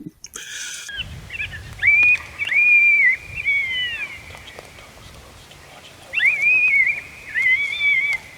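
Coyote howling: several long, high, wavering howls that rise, hold and fall, in two bouts with a pause between.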